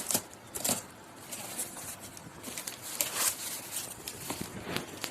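A cardboard box being handled and opened: irregular rustling with scattered light knocks and clicks.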